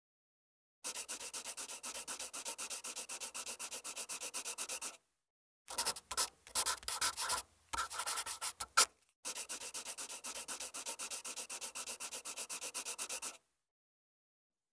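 Marker pen scribbling: a few seconds of rapid, evenly spaced strokes, a stretch of irregular scratches in the middle, then another run of rapid strokes.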